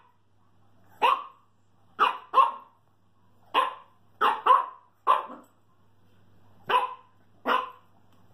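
A dog barking: about nine short barks at uneven intervals, some in quick pairs.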